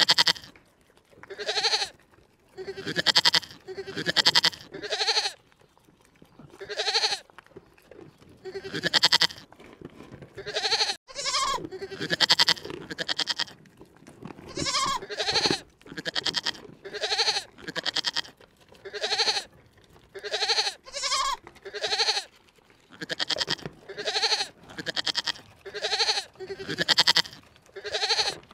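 An animal bleating over and over, about one call a second, each call short with a wavering, pulsing voice that rises and falls in pitch.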